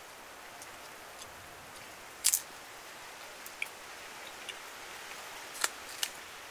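Eating with a small wooden utensil: sharp clicks and taps of wood against a wooden bowl and of the food being taken, the loudest a quick double click about two seconds in and two more near the end, over a steady faint hiss.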